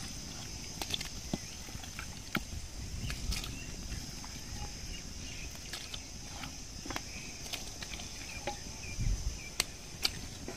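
Raw chicken pieces dropped by hand into a pot of boiling gravy, giving scattered small clicks and soft splashes, over a steady high insect chirring.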